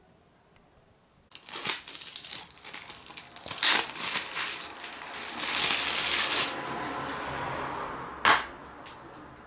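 Plastic DVD case being handled at close range: crackling, crinkling plastic with sharp clicks, starting about a second in, and one loud click near the end.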